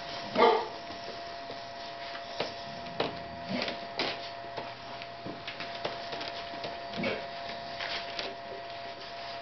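Ca de Bou puppies playing in a pen: a short bark about half a second in and another short cry near seven seconds, among scattered light knocks and scuffs, over a steady electrical hum.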